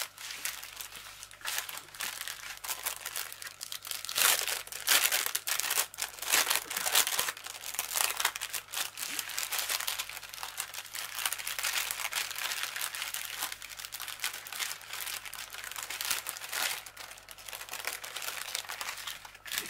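Small plastic zip-lock bags of diamond painting drills crinkling and rustling as they are picked up, shuffled and gathered by hand. The crinkling is busy and irregular.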